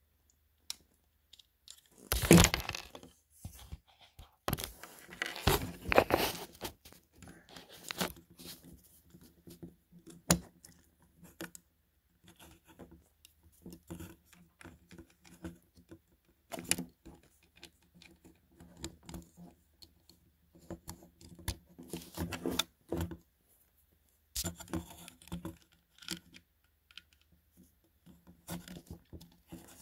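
Plastic Transformers action figure being handled on a table: scattered clicks of plastic parts, with rustling and scraping. The longer, louder rubbing noises come twice in the first several seconds.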